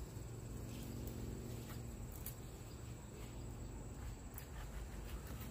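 Insects trilling steadily at a high pitch over a low background rumble, with scattered faint clicks and rustles.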